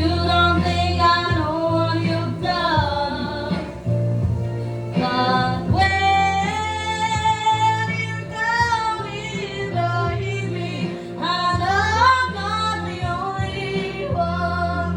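A woman singing a melody over an instrumental backing track with a steady bass line, holding and bending long notes.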